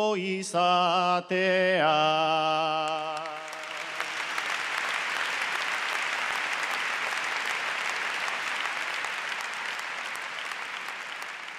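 A man sings the last words of an improvised Basque bertso a cappella, holding the final note with a wavering pitch. About three seconds in, a large audience breaks into applause that carries on steadily.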